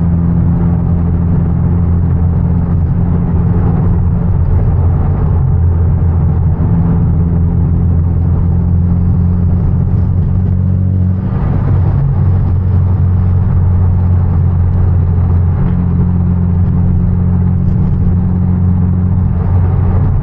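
Hyundai Genesis Coupe 2.0T's turbocharged four-cylinder engine droning at a steady cruise, heard from inside the car with road rumble. The note changes briefly about eleven seconds in, then settles back to a steady drone.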